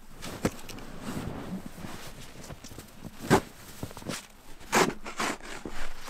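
Boots crunching through deep, wet, heavy snow: a few separate crunches, unevenly spaced.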